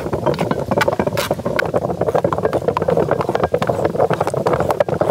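Traditional stone wet grinders (aattukal), several at once, with cylindrical stone rollers turned round in hollow stone basins to grind wet dragon fruit pulp. The sound is a steady grinding of stone on stone through the pulp, with frequent small knocks and clicks.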